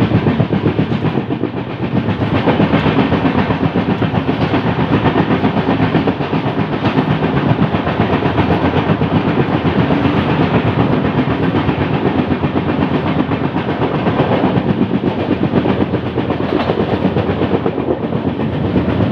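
LHB passenger coaches of an Indian express train running on the track with a flat wheel: a loud, fast, regular beat over the rolling noise, the flat spot on the wheel striking the rail once every turn.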